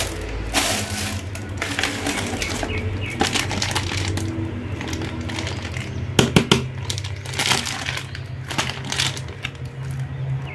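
Clear plastic packaging bag crinkling in irregular bursts as a bagged plastic costume mask is handled, over steady background music.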